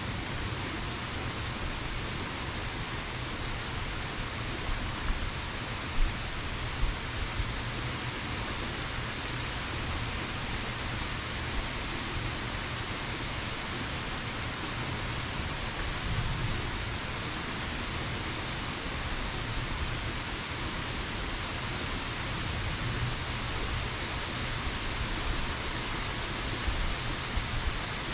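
Steady rain falling, an even hiss with a few sharper drop taps standing out, the loudest about six seconds in.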